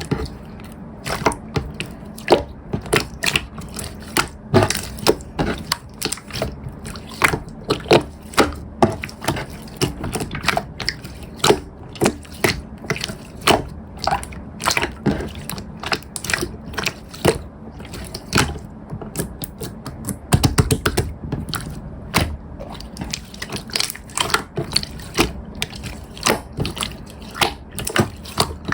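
Yellow slime being squished and worked by hand, giving irregular sharp pops and clicks about one or two a second, with a quick run of clicks about twenty seconds in.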